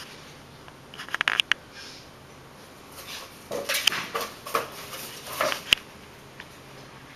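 A kitten playing with a cardboard paper towel roll: a quick run of light taps as it is batted about a second in, then bursts of scuffling and tapping, with one sharp tap near the end.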